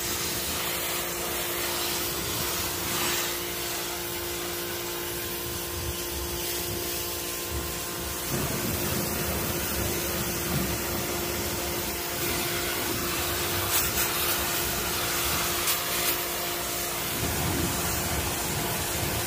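Pressure washer running with a steady motor hum while its wand sprays a hissing jet of water onto a car's bodywork and wheel. The spray gets louder and fuller about eight seconds in.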